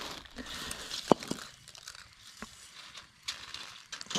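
Plastic bag crinkling, with scattered small clicks and rattles and one sharp click about a second in, as a wire-mesh prawn pot is handled.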